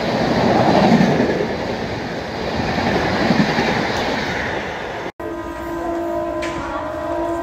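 Express train's coaches rushing past at speed, a steady rumble and rattle of wheels on track. It breaks off abruptly about five seconds in, and a locomotive horn then sounds a steady multi-tone blast from an approaching train.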